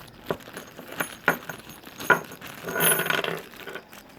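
Small steel parts of a new motorcycle steering-head bearing (racer) set, its cups and balls, clinking as they are handled: a few separate sharp clinks, then a short metallic rattle about three seconds in.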